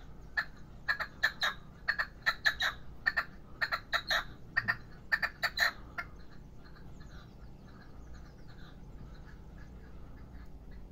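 Young male red-legged partridge (a caged decoy, 'reclamo') calling: a rapid run of short, sharp notes, about three a second, for some six seconds, then only faint soft notes.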